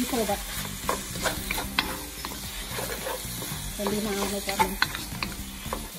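A wooden spatula stirs chicken around a wok, scraping and knocking irregularly, while the chicken sizzles and fries steadily in thick Panang curry sauce.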